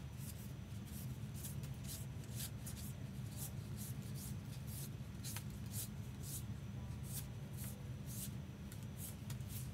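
Trading cards sliding against each other as a stack is thumbed through card by card: a quick, irregular run of soft swishes, roughly three a second, over a steady low hum.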